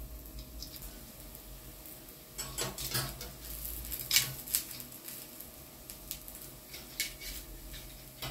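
Metal kitchen tongs clicking and tapping against an electric grill plate as beef skewers are turned. The taps are scattered, with a short scraping cluster around two and a half to three seconds in and the sharpest click about four seconds in.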